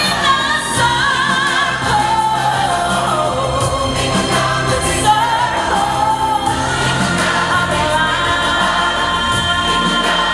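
Choir singing over backing music, with a lead voice holding long wavering notes.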